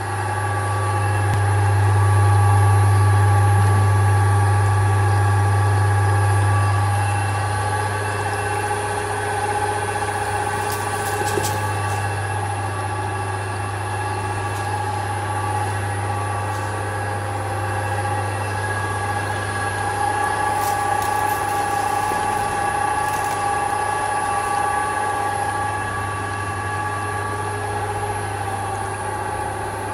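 GM-5000 Plus screw oil press running under load, pressing safflower seed for oil. It makes a strong, steady deep hum with several steady whining tones above it, and is a little louder for the first several seconds.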